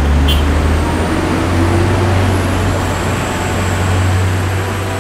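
Steady low rumble of road traffic with a hiss over it.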